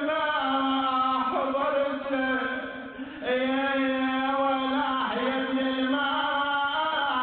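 A man chanting an Arabic mourning elegy into a microphone, drawing out long held melodic notes with a short break for breath about three seconds in.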